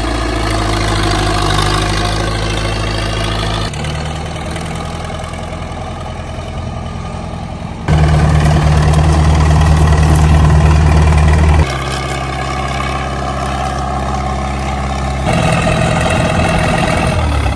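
Caterpillar 215 excavator's diesel engine running steadily, its level and pitch jumping suddenly every few seconds.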